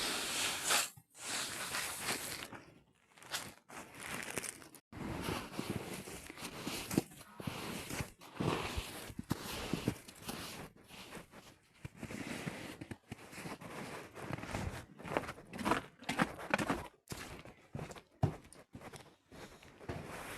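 Irregular crunching and rustling in short uneven bursts, broken several times by abrupt gaps.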